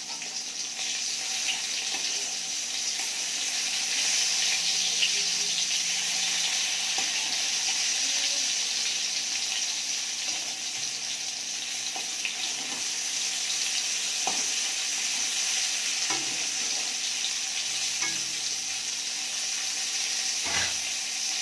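Food sizzling as it fries in hot oil in a pan, steady throughout, with a few light knocks of a utensil in the pan in the second half.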